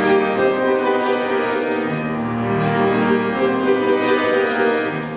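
Slow classical instrumental music: long held chords that change every second or two, easing off slightly near the end.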